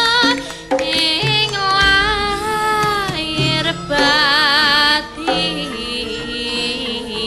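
Music: a high female voice, in the manner of a Javanese sinden, sings several long held phrases with a wide, wavering vibrato over instrumental accompaniment.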